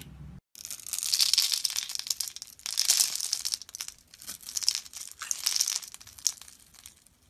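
Utility knife blade cutting and scraping through a dry, crumbly bar of soap: crisp crunching with soap chips breaking off, in a series of strokes with short pauses between them.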